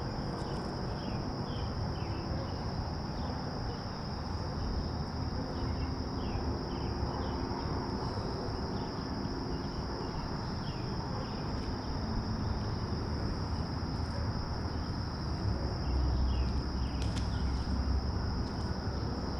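Insects chirring in one steady high buzz, over a low rumble of background noise that grows louder about three-quarters of the way through.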